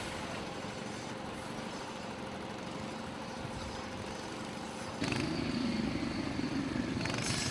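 Concrete pump truck's engine running steadily. About five seconds in the sound changes abruptly to a louder, lower machine noise.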